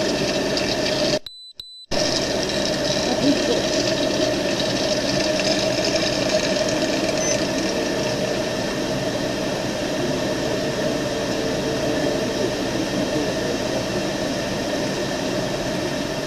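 Steady engine and road noise inside a moving vehicle's cabin, with even humming tones. About a second in, the sound cuts out for half a second, and a faint high beep is heard in the gap.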